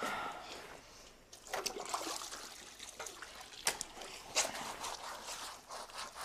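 Water splashing and trickling in irregular bursts, with a couple of sharper splashes between three and a half and four and a half seconds in.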